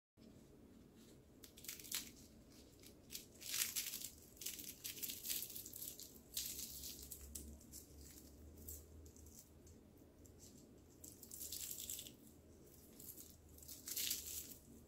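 Crisp baked phyllo pastry of a pistachio baklava cup crackling and crunching faintly in short bursts as fingers break it apart.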